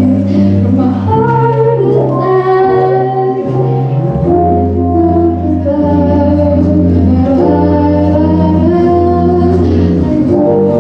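A young woman singing solo into a microphone over instrumental accompaniment with long held bass notes and sustained chords.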